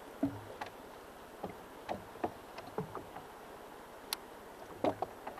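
Water lapping against a jet ski's hull on calm water, with a dozen or so irregular light clicks and knocks over a faint steady hiss; the loudest knock comes near the end.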